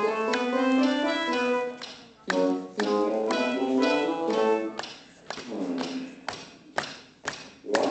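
Playback of a short, quick-noted song filling a hall, with a quick run of pitched notes. From about five seconds in, sharp knocks break it up, with short bursts of notes in between.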